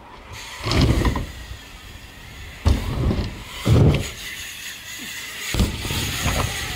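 BMX bike riding a backyard ramp through a big air: tyres rolling on the ramp surface, with several sudden thuds from takeoff and landing, the sharpest about two and a half seconds in.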